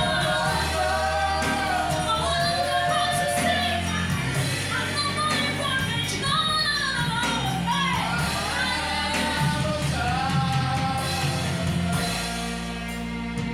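Live worship band music with a singer drawing out long, bending notes over steady held bass notes. The voice drops away about twelve seconds in, leaving the held chords.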